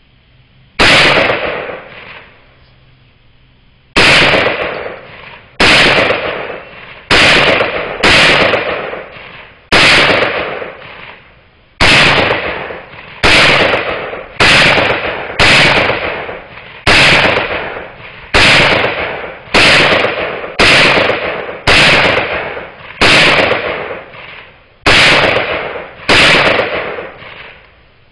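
AR-15 pistol fired semi-automatically, about eighteen sharp shots spaced one to two seconds apart, each with a loud echoing tail, and a longer pause after the first shot.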